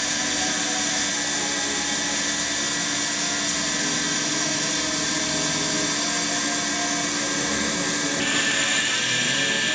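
CNC lathe cutting metal: a steady, loud whirring noise with a low hum, changing abruptly about eight seconds in.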